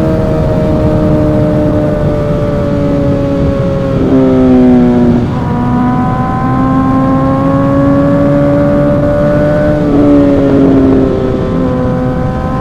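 Suzuki GSX-R1000 inline-four engine with an M4 exhaust running at a steady pitch under way, its note shifting briefly twice, about four and ten seconds in.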